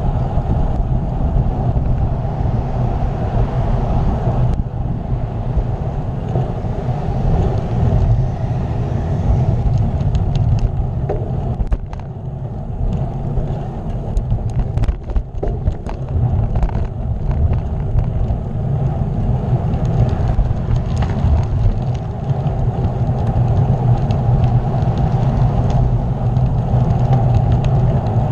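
Steady low rumble of wind and road noise on the microphone of a camera riding along on a moving bicycle. Scattered sharp clicks and ticks come through in the middle stretch.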